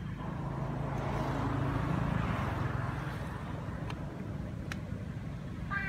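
A motor engine runs somewhere off-picture: a steady low hum with a rushing noise above it, growing louder over the first two seconds. A short, high chirping call comes near the end.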